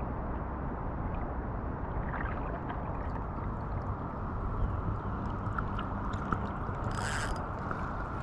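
Steady rush of river water under the light mechanical clicking of an ultralight spinning reel being cranked to retrieve a spoon. A short hiss comes about seven seconds in.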